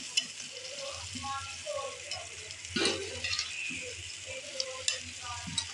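Potatoes and peas sizzling in onion-tomato masala in a karahi while a spoon stirs them, with a few sharp knocks of the spoon against the pan.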